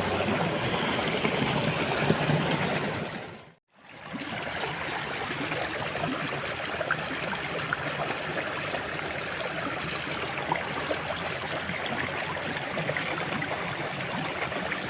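Water running steadily in a small drainage ditch. The sound drops out completely for a moment about three and a half seconds in, then comes back.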